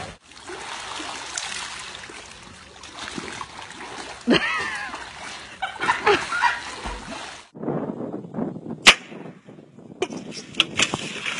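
Pool water splashing as a person swims with a dog, with a few short shouted voices over it. After a cut, a single sharp click and more voices.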